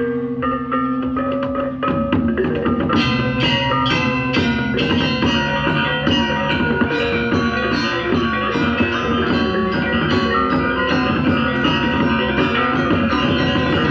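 Balinese gong kebyar gamelan playing. A few sparse bronze metallophone notes ring over a held low gong tone, then about two seconds in the full ensemble comes in loud and fast, with rapid interlocking metallophone figures and sharp ceng-ceng cymbal strikes.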